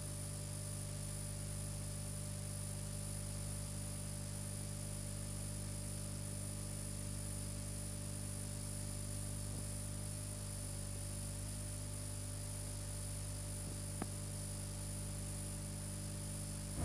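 Steady electrical mains hum and buzz with constant hiss, the noise floor of an old film soundtrack transfer, with a single faint click about fourteen seconds in.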